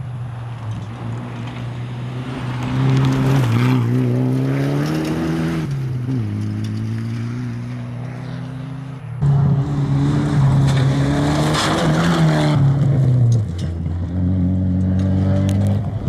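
Mitsubishi Galant VR4 rally car's turbocharged four-cylinder engine driven hard, revving up and dropping in pitch at each gear change. About nine seconds in the sound cuts abruptly to a second pass. There the engine climbs again, drops off about four seconds later, and picks up once more.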